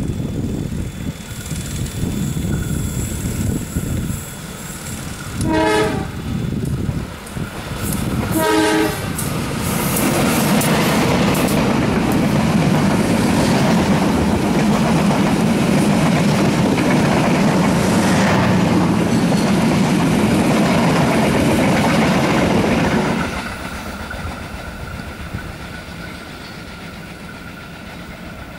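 Diesel-hauled passenger train: the locomotive rumbles as it approaches and sounds its horn in two short blasts, about six and nine seconds in. Then the coaches roll past loudly and steadily until the noise drops sharply a few seconds before the end, leaving a fainter rumble.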